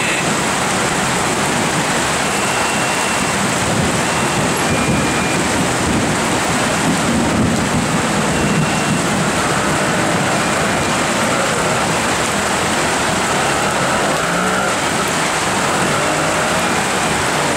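Heavy rain pouring steadily onto a paved road, a dense, even hiss, with a low rumble swelling in the middle.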